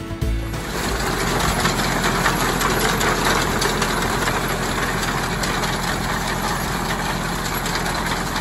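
A compact tractor running as it pulls an old corn binder through standing corn, the binder cutting stalks with a dense, steady mechanical clatter. It starts about half a second in, as music cuts off.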